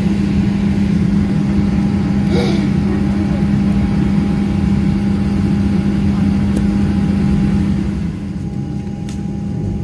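Steady cabin hum inside a Boeing 737 MAX 9 at the gate before taxi, with a constant low drone, dipping slightly about eight seconds in.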